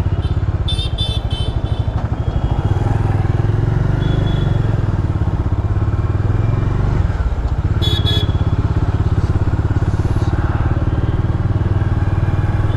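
Bajaj Dominar 400's single-cylinder engine pulling away and running through city traffic, heard close up from on the bike, with a steady pulsing exhaust note that grows louder after about two seconds and dips briefly about seven seconds in.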